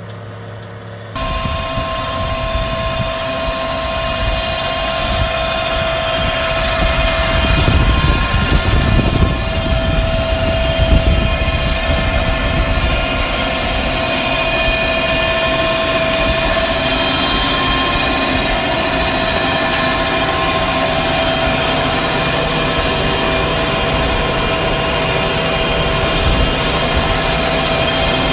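Tractor running under load while driving an Alpego rotary tiller bed-former. There is a steady low rumble with several constant whining tones over it. About a second in the sound changes abruptly and gets louder.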